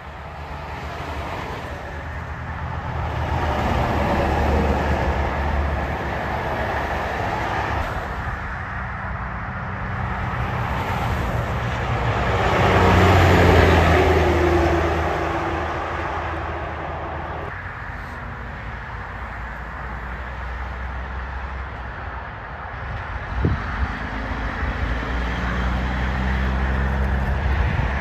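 Heavy diesel tractor-trailers passing one after another on a highway: the engine hum and tyre noise of each swell up and fade as it goes by. The loudest pass comes about halfway through, as a heavy wrecker towing two truck tractors goes by, and another semi's engine builds up near the end.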